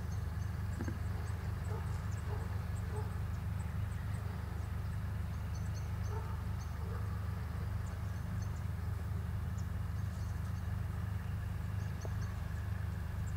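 Outdoor ambience: a steady low rumble with faint, short, high-pitched chirps scattered through it.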